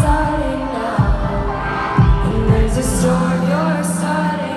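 Live pop music in an arena: a woman singing over deep kick-drum thumps about once a second, giving way to a held low bass note about three seconds in.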